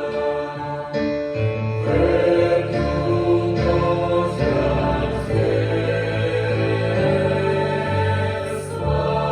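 A choir singing slow, long-held chords that change every second or two.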